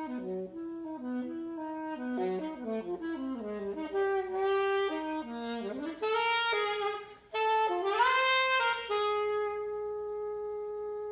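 Unaccompanied alto saxophone playing free-jazz runs of quick notes. It makes rising swoops about six and eight seconds in, then settles into one long held note near the end.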